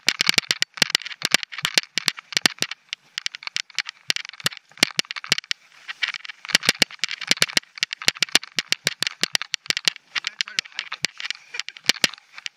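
Mountain bike rattling and clattering over rough, rocky dirt singletrack: rapid irregular knocks and clicks over a steady hiss.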